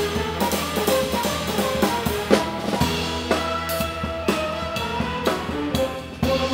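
Large ensemble playing live, with a drum kit up close: frequent snare, bass drum and cymbal hits over held bass and pitched instrument notes.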